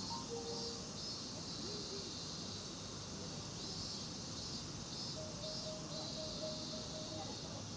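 Insects chirring: a steady high-pitched drone that swells and fades in patches.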